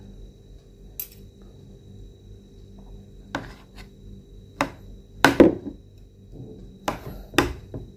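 Metal spoon clinking and scraping against a ceramic bowl and plate while soup is spooned over rice: about six separate knocks, the loudest a little past five seconds in.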